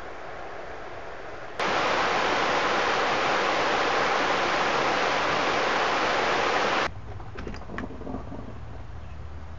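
Shallow river rushing over a stony riffle, a steady loud hiss of water that starts abruptly about a second and a half in and cuts off near seven seconds. A softer steady rush comes before it, and a low hum with a few light clicks after.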